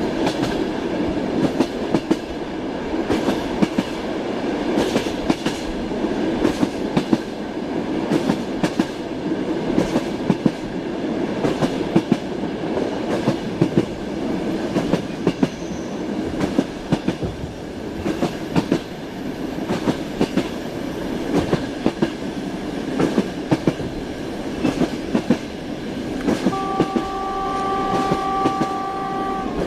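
Train wheels clacking over rail joints with a steady rumble, heard from inside a railway carriage. Near the end a train horn sounds one steady note for about three seconds.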